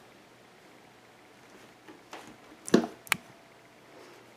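A few short knocks and clicks: a small one about two seconds in, the loudest knock just before three seconds, then a sharp click right after it.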